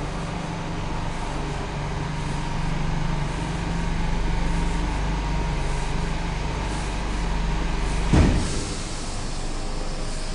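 Old KONE elevator's machinery humming steadily. About eight seconds in comes a single loud clunk, after which the low hum cuts out.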